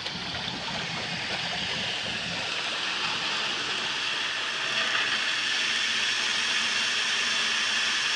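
High-pressure hydro-jet water (4,000 PSI, 18 gallons a minute) rushing through a 4-inch cast iron drain and the clear attachment on it, a steady hissing rush of water that grows a little louder about halfway through. The jet is scouring scale and corrosion from the pipe, and dirty water with scale flows out through the attachment.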